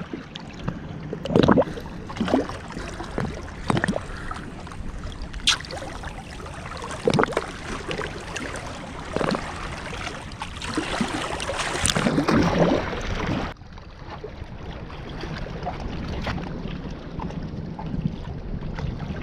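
Shallow seawater sloshing and splashing in irregular bursts around a hand holding a cuttlefish under the surface and letting it go, with wind on the microphone. About thirteen seconds in it cuts abruptly to a steadier wash of wind and surf.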